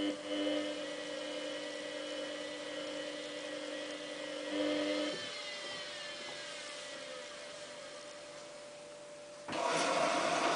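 Samsung WF8804RPA washing machine turning its drum to sense the load weight: a steady motor whine for about five seconds, then the pitch falls away as the drum coasts down. The machine is weighing the laundry, which it reads as short of a full load. A short rushing noise comes near the end.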